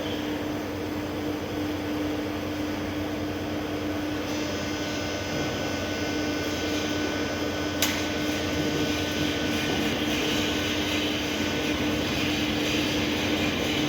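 Arc welding on a steel tank: a steady hiss over a constant hum, growing a little brighter about nine seconds in, with one sharp click near the eight-second mark.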